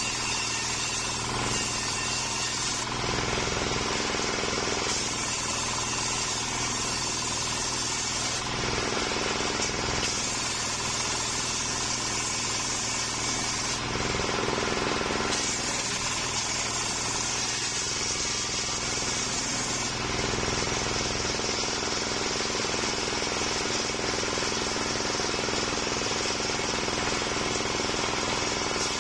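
Homemade table circular saw, powered by a stationary engine, ripping waru wood into boards: the engine runs steadily under the blade while the cutting noise swells and eases several times as pieces are fed through.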